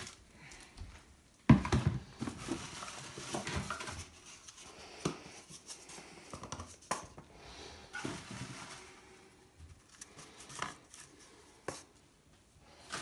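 Handling and rummaging noises: a sharp knock about a second and a half in, then scattered rustling, taps and light knocks. Near the end, empty cardboard toilet paper tubes are handled and set upright on a laminate countertop.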